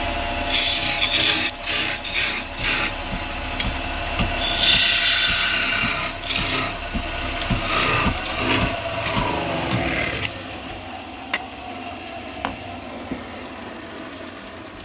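Wood lathe running while a turning tool rubs and scrapes against the spinning wood in bursts. About eight seconds in, the motor's hum falls in pitch as the lathe winds down, leaving a quieter stretch with a few light clicks.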